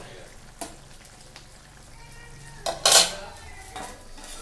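A spoon tapping and scraping in a pan of curry, then a loud metal clatter about three seconds in as a steel lid is set down over the pan.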